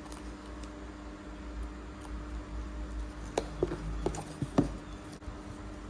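Crepe paper and a cardboard box being handled, with soft rustling and a cluster of short crinkles and taps a little past halfway, over a steady low hum.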